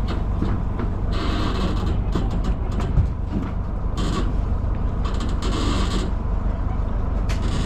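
Harbour ambience beside moored fishing boats: a steady low rumble with several short bursts of hissing.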